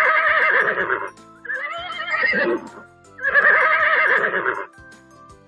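Horse whinnying: three neighs in a row, each lasting over a second with a quavering, shaking pitch, over light background music.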